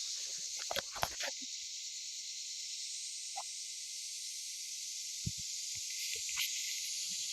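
A steady, high-pitched chorus of insects calling, with a few faint knocks.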